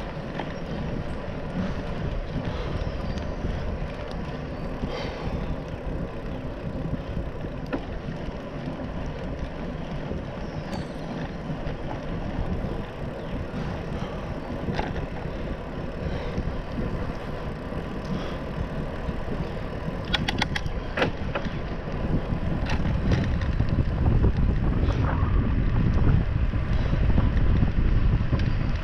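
Bicycle rolling along a trail: steady tyre and riding noise with wind on the camera's microphone, a quick run of rattling clicks about two-thirds of the way through, and a heavier low rumble in the last few seconds.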